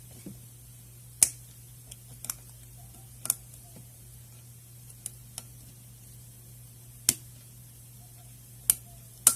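Sharp, isolated clicks, about eight of them spaced a second or more apart, from a Master Lock 6835 padlock's pins under a pick and tension wrench. This lock gives a lot of clicks, which the picker puts down to serrated pins. A steady low hum runs underneath.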